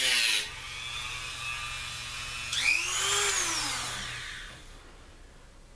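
Hand-held rotary tool with a cut-off disc cutting through the plastic ties of model railroad track, then the motor winding down with a falling pitch. A second short whirr, rising then falling in pitch, comes about three seconds in and fades out.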